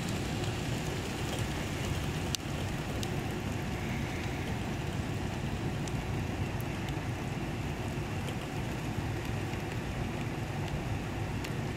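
Steady rain falling during a thunderstorm, with a few sharp ticks of single drops.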